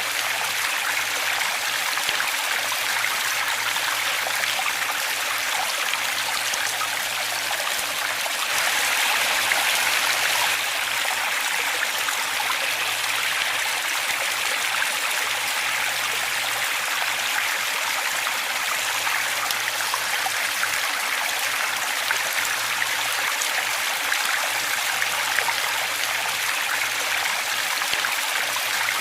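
Waterfall: steady rushing and splashing of running water, swelling slightly for a couple of seconds about nine seconds in.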